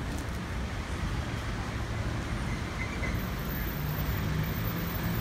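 Steady background noise of city traffic, a low even rumble with no distinct events, and a faint engine hum joining about four seconds in.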